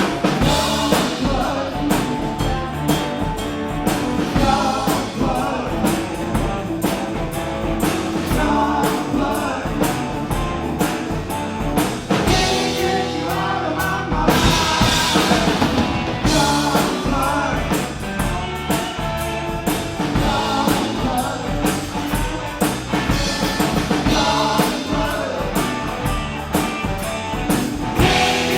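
A rock-and-roll band playing with a steady drum-kit beat, the full band coming in loud at once after a brief lull.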